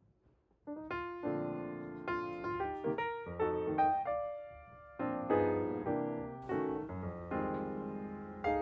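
Background piano music: a gentle melody of single notes and chords that starts about half a second in after a brief near silence.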